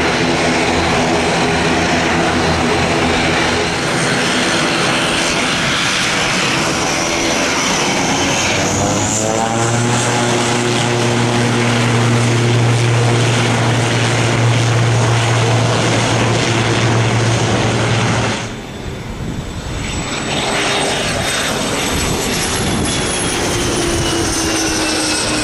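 ATR twin-turboprop airliner's engines running with a stacked propeller drone that rises in pitch about eight to ten seconds in as power comes up, settling into a louder, steady low propeller hum. About eighteen seconds in, this gives way to a twin-engine business jet taking off, its turbine whine falling in pitch as it passes.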